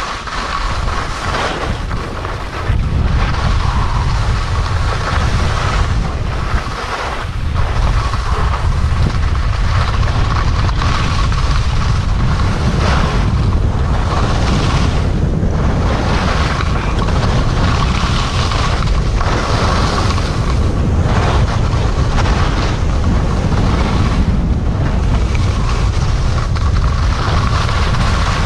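Wind buffeting the microphone of a skier going downhill, with skis scraping and hissing over packed snow, swelling and dipping every second or two as the skier turns.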